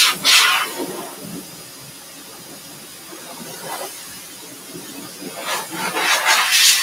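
Grooming dryer blowing air through its hose nozzle: a loud hissing rush at the start, quieter for a few seconds while the nozzle is held away, then loud again near the end as it is aimed back at the dog.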